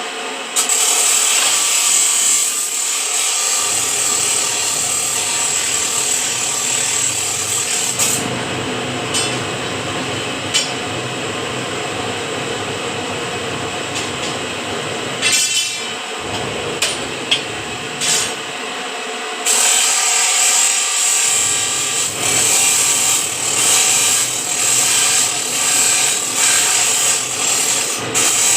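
Metal-cutting band saw running through a steel square bar: a continuous grinding, rasping cut with a high whine. It gets louder about half a second in, eases off at about eight seconds, and grows louder again at about twenty seconds.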